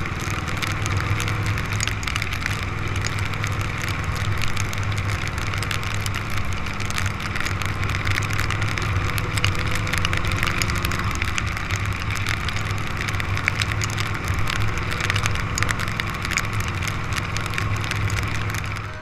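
Classic motorcycle engine running steadily at cruising speed on a wet road, with a hiss of rain and tyre spray and many small ticks of raindrops hitting the camera.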